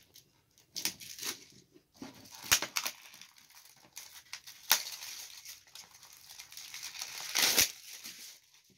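Clear plastic shrink-wrap being torn and peeled off a Blu-ray case, crinkling and crackling in irregular bursts, loudest near the end as the cellophane is crumpled.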